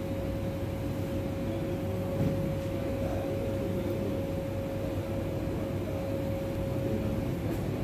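Steady mechanical hum with a single steady tone that stops near the end.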